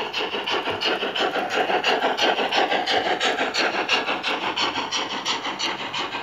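Gauge 0 Lenz BR 50 model steam locomotive's sound system playing steady, rapid steam exhaust chuffs, about five a second, as the train runs, with its passenger coaches rolling past on the track.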